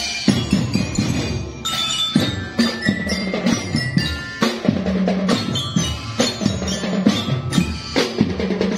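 Marching band playing a tune on marching glockenspiels (bell lyres) struck with mallets: bright, ringing metal-bar notes over a steady beat of drums.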